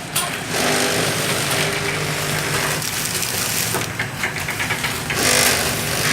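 Automatic pellet packing machine running, forming and sealing pillow packs: a steady motor hum with a noisy surge every one to two seconds as it cycles.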